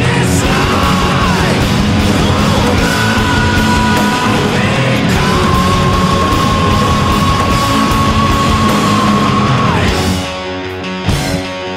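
Loud heavy rock music with shouted vocals. A long held note sounds through the middle, and about ten seconds in the music drops quieter and thins out.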